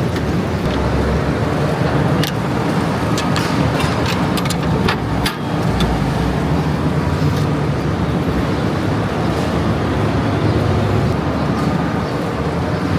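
A vehicle engine running steadily with a low rumble, with scattered knocks and clatters about two to five seconds in.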